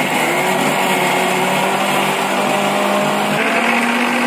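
Preethi Zodiac mixer grinder running, its small stainless-steel jar grinding cucumber, green chillies, coriander and coarse salt into chutney without water. A loud, steady whir whose motor hum steps up slightly in pitch a bit over three seconds in.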